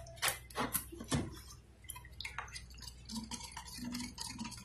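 A stirring stick clicking and scraping against the side of a small cup of paint as it is stirred by hand: a few sharp taps in the first second or so, then lighter scattered clicks.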